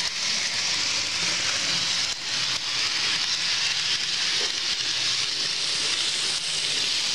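Minitrix N-scale ICE model train running along the track: a steady rushing hiss from its small motor and wheels on the rails, with a couple of faint clicks about two seconds in.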